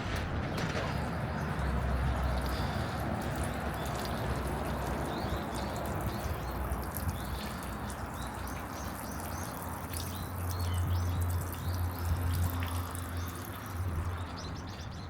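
Small birds chirping repeatedly over a steady outdoor background noise, with a low rumble swelling for a few seconds near the end.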